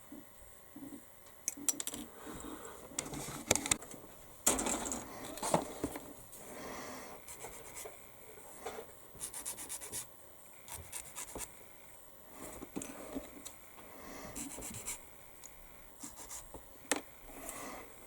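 Small plastic model kit parts being handled and worked at the bench: irregular rubbing and scraping with scattered sharp clicks and taps.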